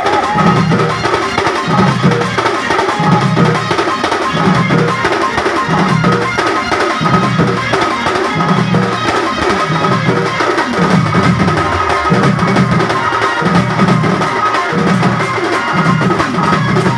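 Loud amplified band music from a truck-mounted sound system with horn loudspeakers, carried by a heavy low drum beat that comes round about every second and a quarter.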